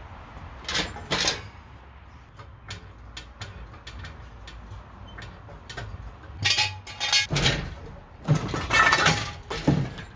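Metal clanks, knocks and scraping as a BMW E46 330xi's engine and automatic transmission are hauled out of the engine bay on an engine hoist. The clatter comes in scattered knocks with louder bursts about a second in and again through the second half.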